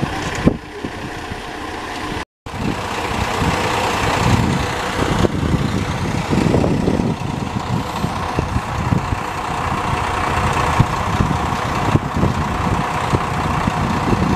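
Diesel rail vehicle engine idling steadily. The sound breaks off for a moment about two seconds in and then runs on.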